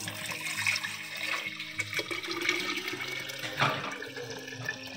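Thin liquid poured in a steady stream from a blender jar into a glass jar, splashing as the jar fills, with a louder splash about three and a half seconds in.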